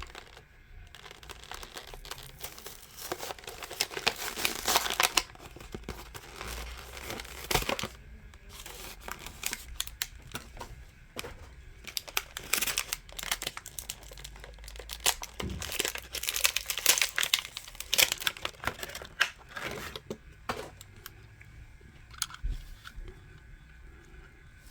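Packaging crinkling and tearing in irregular bursts as a diecast model car is unpacked.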